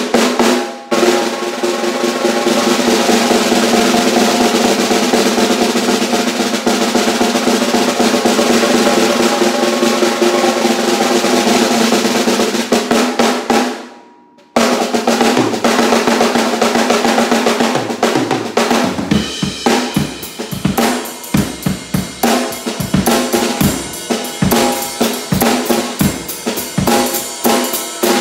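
6.5x13-inch six-ply maple snare drum, tuned up tight, played in a long continuous roll with the drum's pitch ringing through. The roll dies away about halfway through, then a second roll starts. From about two-thirds of the way in it gives way to a beat on the drum kit, with bass drum under sharp, cracking snare hits.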